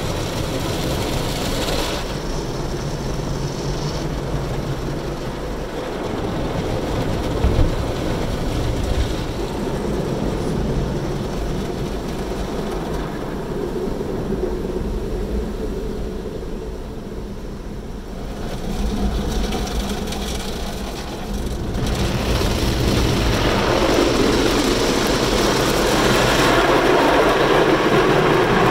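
Automatic car wash heard from inside the car: rotating cloth brushes scrubbing across the windshield and body while water sprays on the glass and the wash machinery runs. There is a brief knock about seven seconds in, and the noise grows louder over the last several seconds.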